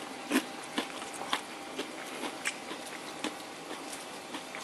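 Crispy flour coating of air-fried buttermilk chicken crackling as hands tear a piece apart, an irregular run of small sharp snaps, the loudest about a third of a second in.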